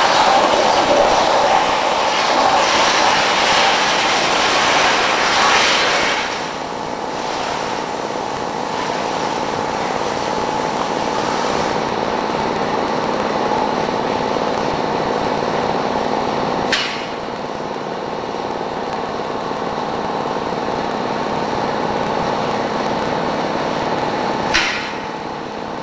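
Steel Tailor portable CNC cutting machine's torch cutting steel plate: a steady hiss, loudest for the first six seconds and then dropping to a lower, even level. A sharp click comes about two-thirds of the way through, and another near the end.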